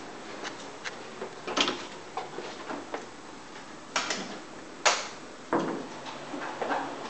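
Scattered sharp knocks and clicks over a steady low hiss, the loudest about four and five seconds in.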